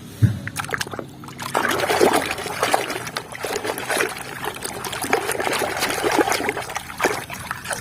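Water splashing and trickling, with many irregular small clicks and a knock just after the start.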